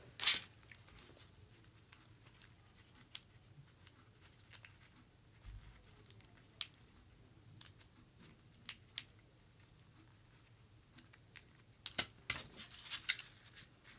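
Crinkling, rustling and small crisp clicks of a preserved rose being handled, its petals worked by fingers, with a few louder clicks near the end.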